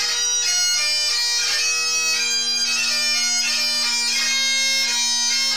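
Scottish Highland bagpipes playing a tune: the chanter's melody over a steady low drone sounding two notes an octave apart.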